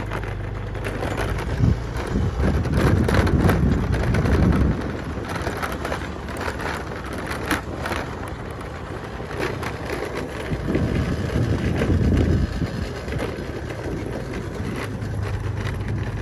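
Motorcycle riding along an unpaved dirt road: a steady engine hum under wind buffeting the phone's microphone and the rumble of tyres on the rough track. The buffeting and rumble grow louder for a few seconds about a second in, and again about two thirds of the way through.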